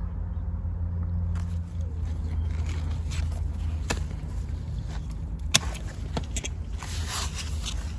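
Rustling and handling noise as eggplant leaves are brushed aside by hand, with a few light clicks and one sharp click about five and a half seconds in, over a steady low rumble.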